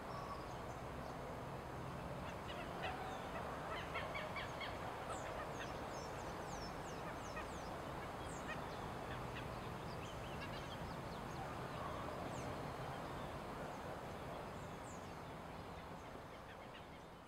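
Birds calling and chirping over a steady outdoor ambience, with many short calls throughout. The sound fades out near the end.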